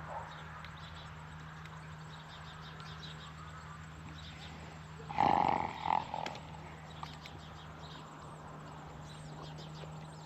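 A large farm animal gives a loud call about halfway through, followed by a short second call. The call lasts under a second.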